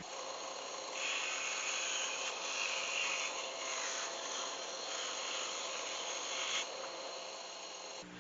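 A saw cutting 3/16-inch acrylic sheet: a steady, hissy cutting noise that starts about a second in and stops near seven seconds.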